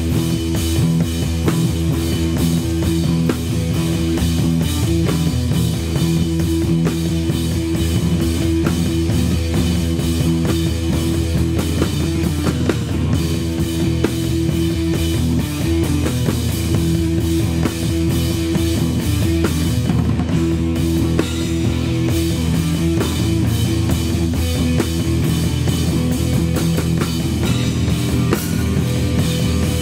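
Live rock band jamming: a drum kit and an amplified guitar playing continuously, with held guitar notes over steady drumming.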